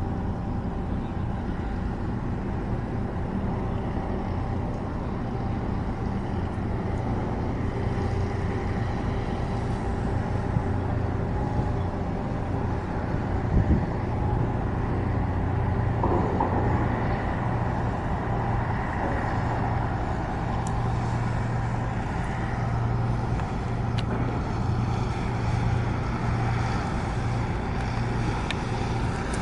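Steady low engine rumble with a deep hum, and a short knock about 14 seconds in.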